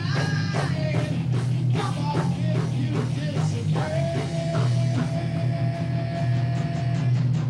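Heavy metal band playing: distorted, crunchy electric guitar over heavy bass and drums, with one note held for about three seconds in the middle.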